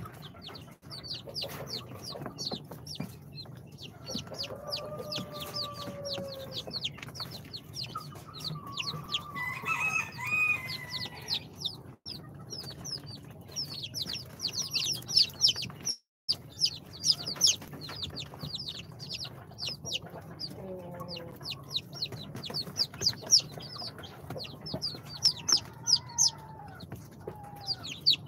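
Day-old Brahma, dwarf Cochin, Sultan and İspenç chicks peeping nonstop, a dense overlapping stream of rapid high falling peeps. A few longer, lower calls sound behind them at intervals.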